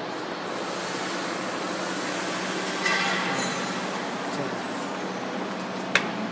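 PVC arc bending machine at work: a steady hum and machine noise with hisses of compressed air, one about half a second in and a short noisy burst about midway. A single sharp click comes near the end.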